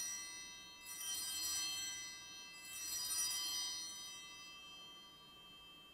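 Altar bell ringing at the elevation of the consecrated host. It is struck again about a second in and about three seconds in, over the ringing of a strike just before, and each ring fades slowly.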